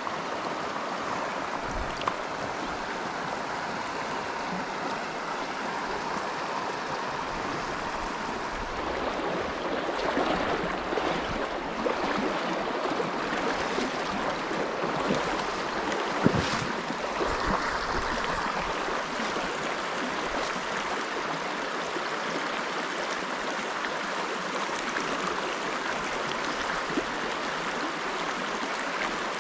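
Shallow, rocky river water running steadily over stones, with the flow louder for several seconds midway and a couple of brief knocks.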